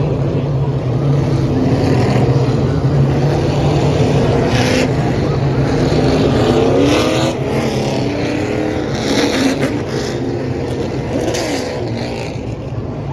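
Stock car V8 engines running together as a field of race cars circles the track, one after another passing close by, each engine note shifting in pitch as it goes past. The engines stay at a steady, even pace with no hard revving, and the sound eases off a little in the second half.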